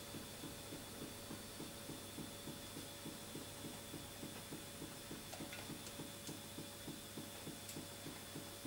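Model Stirling hot-air engine running steadily, its mechanism giving a soft, even beat of about three strokes a second.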